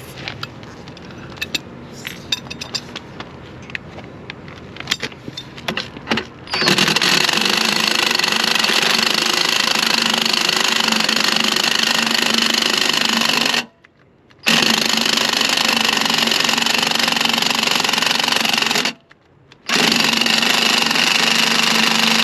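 A few light metal clicks and clinks, then about six and a half seconds in a cordless Ingersoll Rand 1/2-inch impact wrench starts hammering on lug nuts. It runs in three long bursts with two short pauses. The gun is low on battery and struggling, which the owner takes for the gun wearing out.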